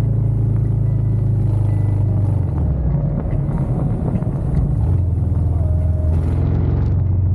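Cruiser motorcycle engine running at highway speed, heard from the bike itself. Its note drops about two and a half seconds in and picks up again near five seconds, with a truck running close alongside.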